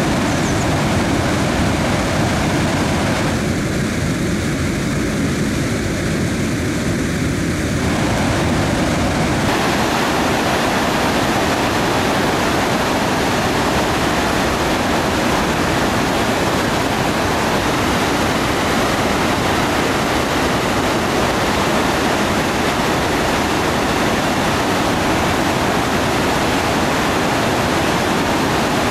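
Floodwater from a reservoir's bellmouth overflow spillway gushing out of the arched stone tunnel outlet into the stone basin below: a loud, steady rush of water, its tone shifting slightly about nine seconds in.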